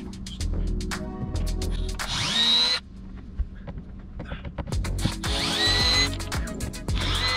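Milwaukee cordless drill-driver backing screws out of a boat's fiberglass deck panel, its motor whining up in pitch in short bursts, three times. Background music with a steady beat plays underneath.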